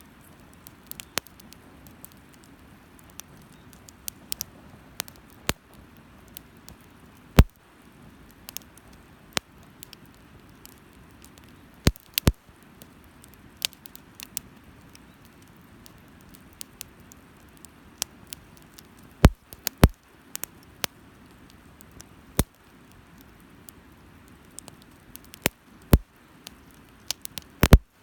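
Wood fire crackling, with sharp irregular pops scattered through it, a few much louder than the rest, over a low steady hiss.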